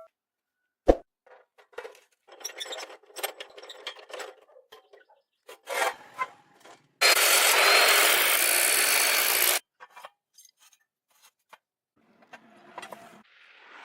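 Hand work on metal: a single knock, then scraping and rubbing. Partway through, a loud steady hiss lasts about two and a half seconds and cuts off sharply.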